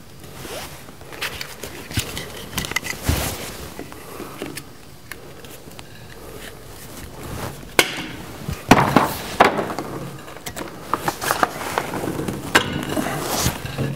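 Handling noise from fitting blue plastic water pipe into brass tee and valve fittings: irregular knocks, clicks and rattles of the pipe against the fittings and the plywood mounting board, louder and busier in the second half.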